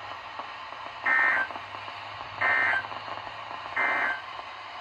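Three short bursts of Emergency Alert System SAME data tones, about 1.4 seconds apart: the end-of-message signal that closes an alert broadcast over weather radio. A faint hum and hiss sit between the bursts.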